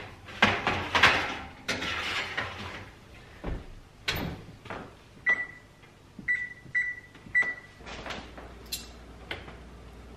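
A metal sheet pan slides onto the oven rack and the oven door shuts, with a run of clatters and knocks. A few seconds later come four short, high electronic beeps from the range's control panel as its buttons are pressed.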